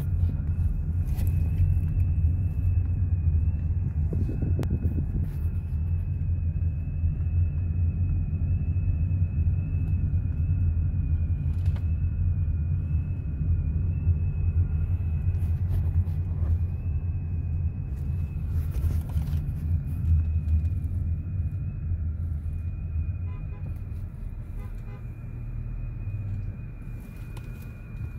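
Low rumble of a car driving slowly, heard from inside the cabin, with a faint steady high whine over it. The rumble eases off near the end.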